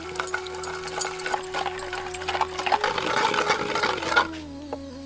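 A wooden churning stick twisted in a clay pot full of hard green jackal jujube fruits, the fruits clattering against each other and the pot in quick rattling clicks that stop about four seconds in. Underneath is a held tone that shifts pitch a few times.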